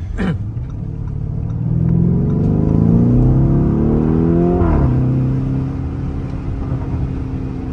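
Lamborghini Urus Performante's twin-turbo 4.0 V8, with its standard Akrapovic exhaust, heard from inside the cabin as the car accelerates. The revs climb steadily for about three seconds, then drop sharply near the five-second mark as the 8-speed automatic shifts up. The engine then settles into a steady lower note.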